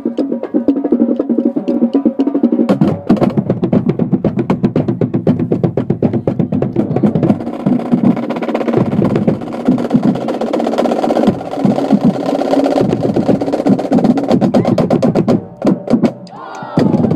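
School marching band playing loudly: rapid snare and percussion strokes over sustained brass chords, with a tuba in the band. The music drops away for about a second near the end.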